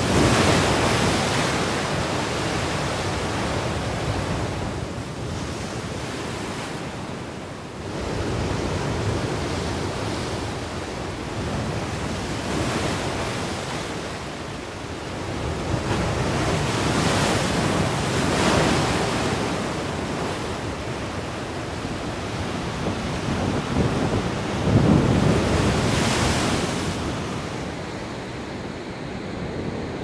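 Ocean surf breaking on a rocky shore: waves crash and wash back, the rush of water swelling and easing every few seconds, the loudest crash about three-quarters of the way through.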